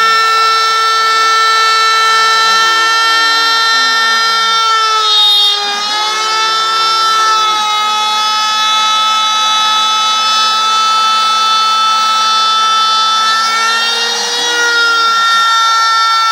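Homemade CNC router's spindle motor running with a steady high whine while its end mill cuts a groove in 18 mm plywood, a rasping cutting noise under the whine. The whine dips briefly in pitch about five seconds in and again near the end, and lower motor tones glide and switch pitch as the machine's axes move.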